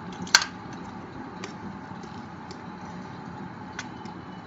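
A plastic Connect 4 disc dropped into the grid, clacking sharply once about a third of a second in, followed by a few faint clicks, over a steady low hum.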